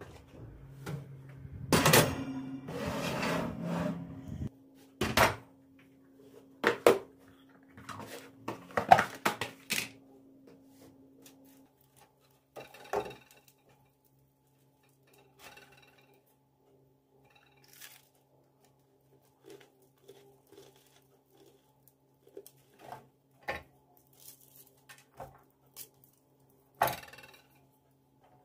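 Household handling sounds: a run of knocks and clatters of dishes and objects being picked up and set down, busiest in the first ten seconds, then scattered light taps. A low steady hum sits under the first ten seconds or so and stops.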